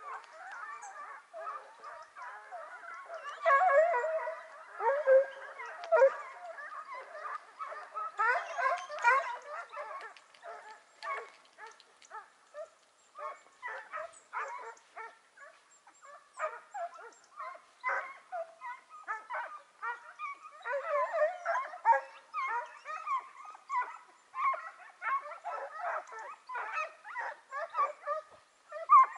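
A pack of hare-hunting scent hounds giving tongue in full cry on a hare's trail: many overlapping yelps and howls from several dogs. The calls swell loudest about four and nine seconds in, and again in the last third.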